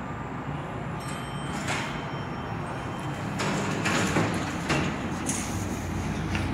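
Elevator doors sliding open about halfway through.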